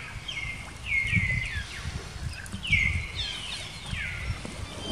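Baby macaque crying in distress, a run of short high-pitched squeals that each slide down in pitch, several in quick succession.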